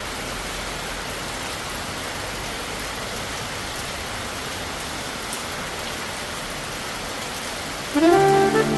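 Monsoon rain falling steadily, a dense even hiss. About eight seconds in, music with held notes comes in over it and is louder.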